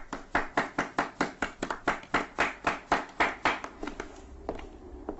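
Quick footsteps of hard-soled shoes on a hard floor, about four to five steps a second, louder in the middle and thinning out near the end.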